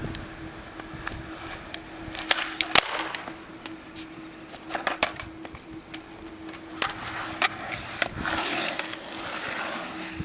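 Skateboard on a hard court: wheels rolling, with several sharp clacks of the board's tail popping and the deck landing during heelflip attempts, the loudest about three seconds in.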